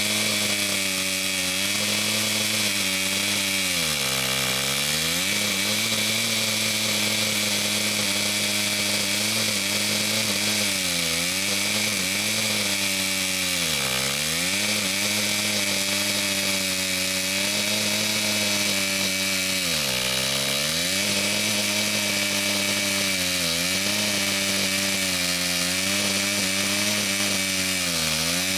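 STIHL MS 260 two-stroke chainsaw running at full throttle while cutting through a log. Its engine note dips sharply and recovers several times as the chain works through the wood.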